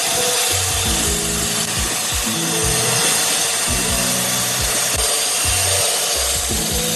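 A power tool working wood gives a steady, dense hiss with no pauses, over background music with a bass line and a regular beat.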